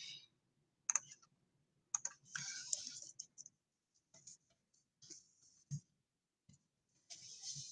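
Faint handling of trading cards: scattered light clicks and a few brief sliding, rubbing sounds of cards and card sleeves.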